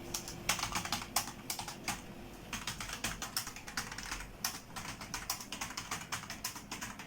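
Typing on an old computer keyboard with flat, stiff keys: an uneven run of key clicks, several a second, with a short pause a little after two seconds in.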